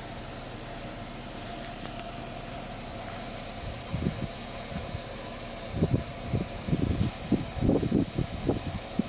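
Insect chorus: a steady high-pitched buzzing that swells about a second and a half in and holds. A few low thumps come and go in the second half.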